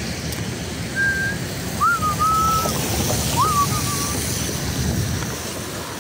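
Someone whistling three short notes, each rising and then held, over the steady hiss of heavy rain and a low rumble of city traffic.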